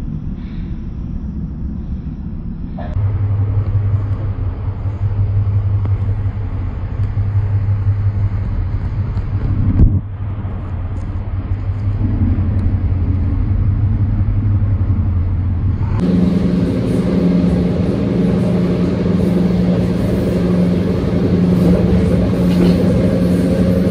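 Passenger train running, heard from inside the carriage: a steady rumble with a low hum. The sound changes abruptly three times, and there is a sharp click about ten seconds in.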